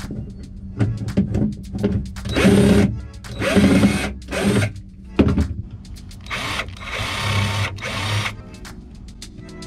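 Cordless drill/driver running in three short bursts, the longest near the end, as it backs screws out of a boat deck to free the center console. Background music with a steady beat plays underneath.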